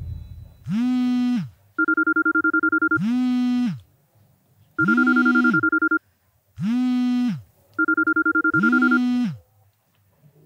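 Mobile phone ringtone: a fast trilling beep alternating with a tone that swoops up and falls back, repeating about every three seconds and stopping about nine and a half seconds in.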